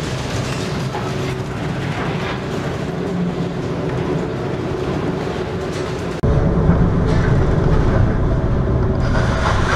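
Ship at sea in a heavy storm: a steady low engine drone under the noise of wind and breaking sea. About six seconds in the sound cuts abruptly to a louder, deeper rumble.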